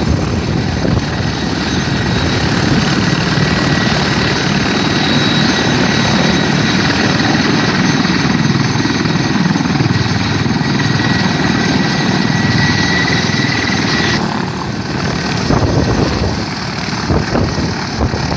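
Mil Mi-35 attack helicopter taxiing with its twin turboshaft engines running and main rotor turning: a loud, steady rotor noise with a high turbine whine. About 14 seconds in the whine drops out and the helicopter noise turns lower and more uneven.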